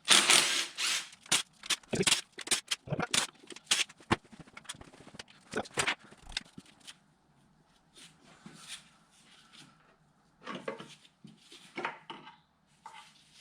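Tools at work undoing the rocker (cam) cover bolts on a small four-cylinder engine. There is a brief burst of tool noise, then a quick run of clicks and knocks that thins to a few scattered knocks after about seven seconds.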